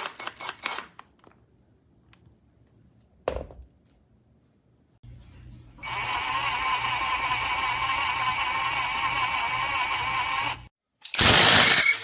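Cordless brushless impact wrench run without load: a steady whir with a high whine that lasts about five seconds and stops abruptly. A quick run of clicks comes at the start, and a short loud burst of noise follows near the end.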